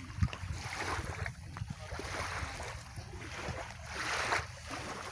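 Wind buffeting the microphone with a low rumble, over small waves lapping at the shoreline in soft surges about once a second.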